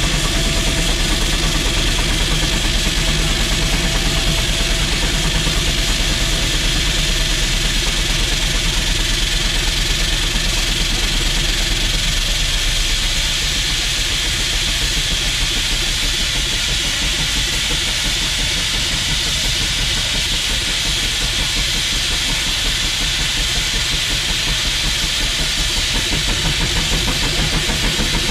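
McLaren steam road locomotive running under load on a belt-driven dynamometer, with a loud, steady hiss of steam over its low running noise. The low running noise eases slightly about halfway through.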